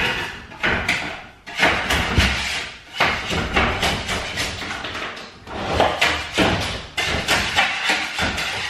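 Irregular scraping and knocking of a hand tool on skirting board, as old adhesive and debris are cleaned off the back of the boards.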